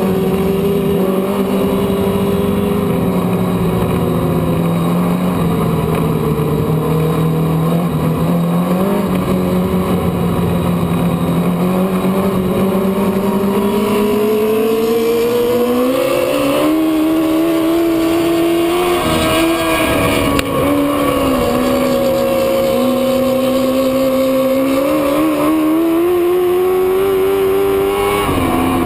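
Race car engine running under racing load. Its pitch sags and climbs with the throttle: it climbs through the middle, dips briefly about two-thirds through and climbs again near the end. The engine is down on power with no snap, starved of fuel by a dying fuel pump.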